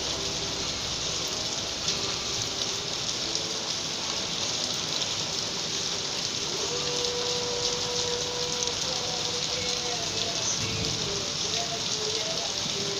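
Rain from a storm falling steadily in an even hiss, with a song playing faintly underneath.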